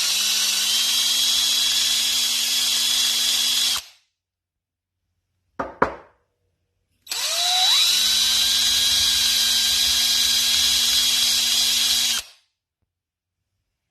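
Electric drill spinning a wire brush inside a tobacco pipe's bowl to scour out the crusty carbon. It runs in two spells of about four and five seconds, the second starting with a rising whine as the drill spins up, with a brief knock in the pause between.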